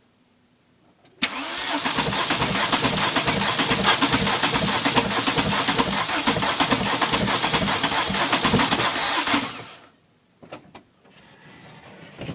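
Worn 1.6 turbo diesel engine cranked by its starter in the cold, with an even rhythmic churn from about a second in until it stops about nine and a half seconds in, without the engine catching. The engine lacks the compression to fire when cold, which the owner puts down to wear at 500,000 km. A few faint clicks follow.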